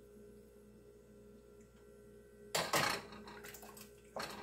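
Hot beef stock poured from a saucepan into a stainless steel soup pot, with a short splash about halfway through. Near the end comes a brief clatter of the metal pan being handled on the stove. A faint steady hum runs underneath.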